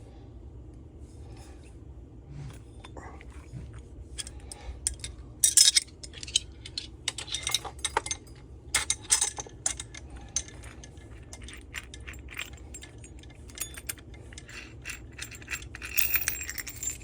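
Small metal parts and hand tools clicking, clinking and rattling as they are handled and set down on a workbench, with a louder jangle about five seconds in and again near the end. A faint steady low hum runs underneath.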